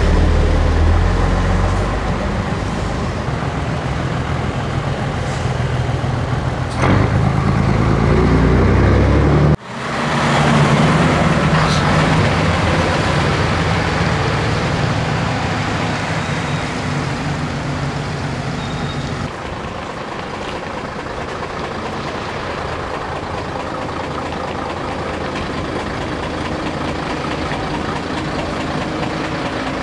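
Diesel engines of classic Scania trucks running as they drive slowly past. The first truck's engine gets louder about seven seconds in. It then cuts off abruptly and a second truck's engine takes over, running steadily.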